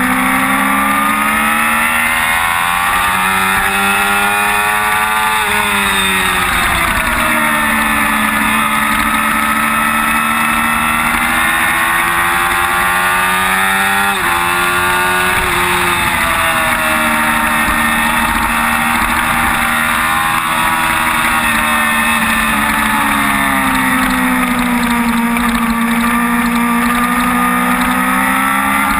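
Sport motorcycle engine heard from onboard at speed, its revs climbing and falling through corners and straights, with a sharp drop in pitch about halfway through like a gear change. Wind rushes over the bike throughout.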